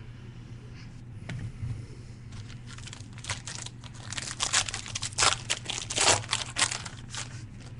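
Packaging of a trading card pack crinkling and tearing as it is opened, in a run of crackles from about two seconds in that grows loudest near the end.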